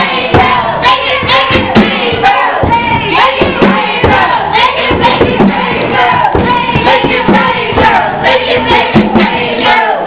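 Hip-hop backing beat with regular drum hits, and several voices singing or calling over it at once.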